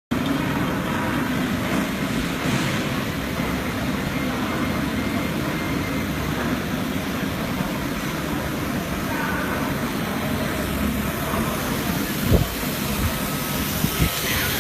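CNC machining center running steadily while machining an aluminum mold, a constant mechanical hum with a low rumble, with two short thumps near the end.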